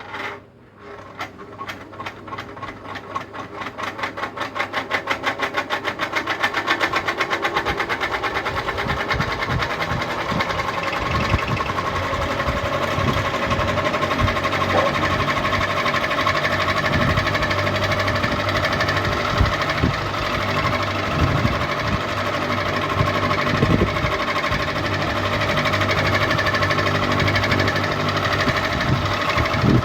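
Ceiling fan switched on with a click and spinning up: a rhythmic pulsing that quickens and grows louder over the first several seconds, then settles into a steady whir with a low hum.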